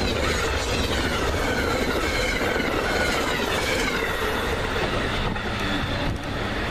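Amtrak passenger train passing at speed, a steady rush of wheels and cars on the rails. High, wavering ringing tones fall slowly in pitch over the first few seconds, then fade.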